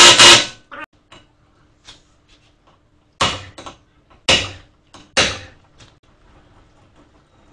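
Three heavy hammer blows on a minivan's front brake rotor, about a second apart, with lighter taps in between, as the rotor is knocked loose at the hub. Just before them, a loud, evenly pulsing mechanical rattle cuts off right at the start.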